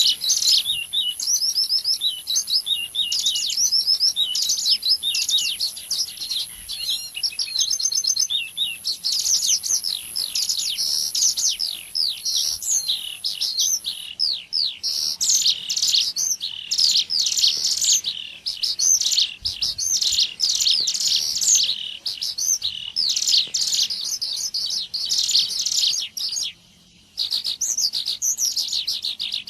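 Bird-lure (pikat) recording of ciblek gunung, a mountain prinia, combined with cigun calls: dense, rapid high-pitched chirps and trills overlapping almost without pause, with a faint steady hiss in the first half and a brief gap near the end.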